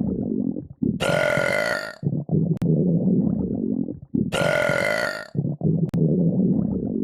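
Long, drawn-out burps running one into the next: a rough, low rumble broken about every three seconds by a brighter, higher-pitched stretch of about a second. The same sequence recurs identically every three seconds or so, as if looped.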